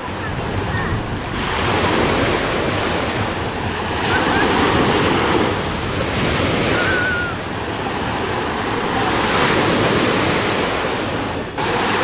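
Small sea waves breaking and washing on a sandy shore, swelling and easing every few seconds, with wind rumbling on the microphone.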